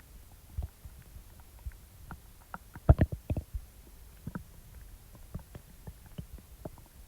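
Human stomach gurgling during digestion after eating: scattered short gurgles and pops, with a louder burst of several gurgles about three seconds in.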